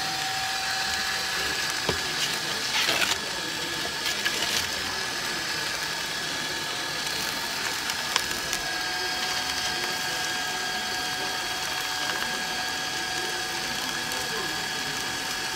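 Electric spiral gold-panning wheel running, its motor and gear drive giving a steady whine with a few brief clicks and rattles in the first half.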